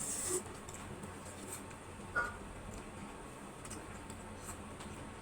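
Faint eating sounds from someone eating noodles: a short slurp-like hiss at the start, then quiet mouth noises and a few light clicks, with one brief pitched sound about two seconds in.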